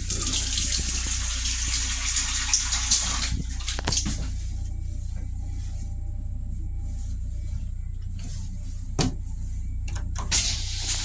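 Water from the sink faucet in an M7 railcar restroom runs hissing into the basin for about four seconds, then stops. A few sharp knocks come later over a steady low hum.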